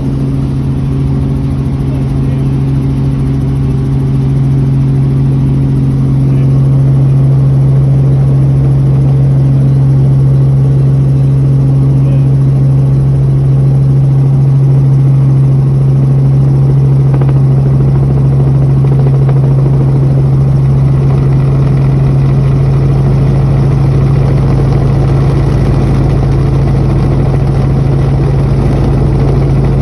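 Helicopter running steadily, a loud constant low hum with a rumble that grows heavier about two-thirds of the way through.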